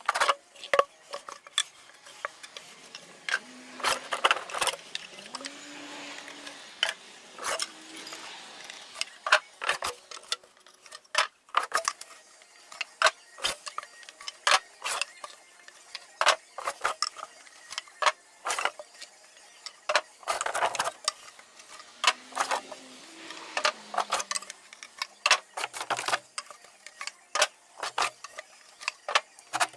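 Irregular clatter of hard objects being handled and set down: many sharp knocks and taps, with a few brief low squeaks.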